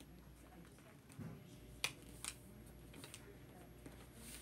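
A sheet of paper being folded and creased by hand on a tabletop: faint rustling, with two sharp crisp clicks near the middle.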